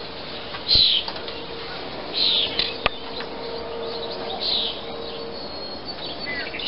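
A bird chirping: three short high calls about every two seconds, over a faint steady hum, with two sharp clicks in between.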